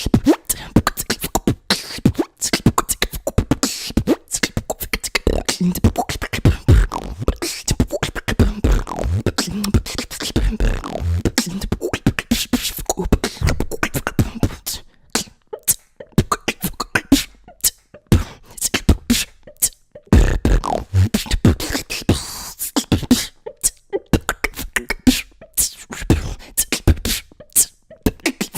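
Human beatboxing: a fast, dense run of mouth-made kick, snare and hi-hat sounds with some bass tones hummed in between.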